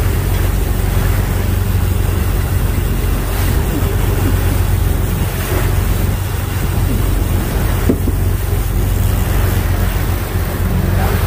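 A fishing boat's engine drones steadily under way, over the rush of the churning wake and water.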